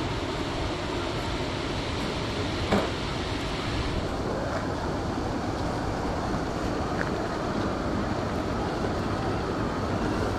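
Steady wind rushing over the microphone with a low rumble, and a single knock a little under three seconds in.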